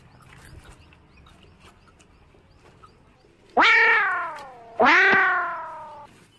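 Two long, loud cat meows about a second apart, each sliding down in pitch.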